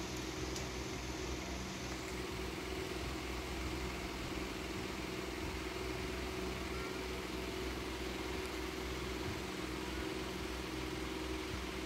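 Steady low machine hum with a constant mid-pitched tone, unchanging throughout, like a motor or engine running at an even speed.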